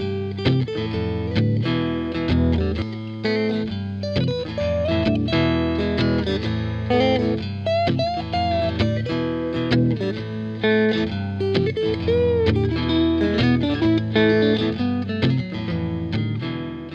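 Guitar-led background music, a continuous run of plucked notes with no break.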